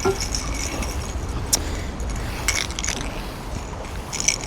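Light metallic clinks and jingles, about five separate ones, from fishing tackle being handled, over a steady low rumble.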